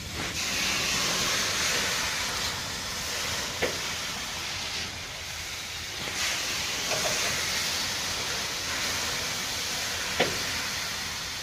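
Steady hiss from an overheated freight wagon wheel smoking where its brake shoe is jammed hard against the tread, with three short clicks along the way. The shoe is locked on because the bogie's brake levers have jammed at the dead-centre lever, and the friction is overheating the wheel.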